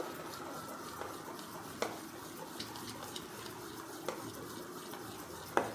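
Spoon stirring thick rice and urad dal batter in a stainless steel bowl, mixing in the Eno fruit salt, oil and water just added: a steady wet swishing with a few light clinks of the spoon against the bowl.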